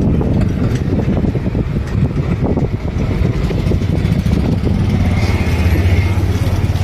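A motor engine running close by, with a steady low hum.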